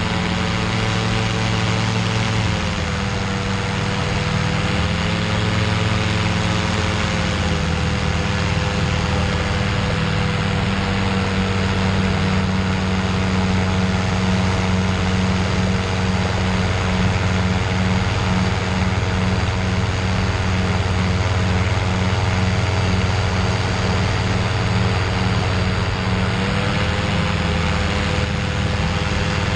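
Engine and propeller of a Cygnet light sport amphibian trike running at steady cruise power in flight, with constant wind rush over the microphone. The engine note dips slightly a couple of seconds in and rises a little near the end.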